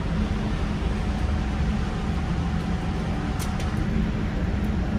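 Steady low rumbling noise with a faint hiss above it, even in level throughout, with one faint click about three and a half seconds in.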